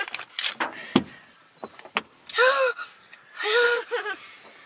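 A grizzly bear's paws and claws knocking against a car's body and side window, heard from inside the cabin: about five sharp knocks with a heavier thud about a second in. In the second half a person gives two short cries of alarm.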